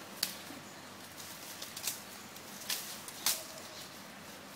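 Elephant feeding on leafy branches: four short, sharp rustles and snaps of leaves and twigs being stripped, spread over a few seconds.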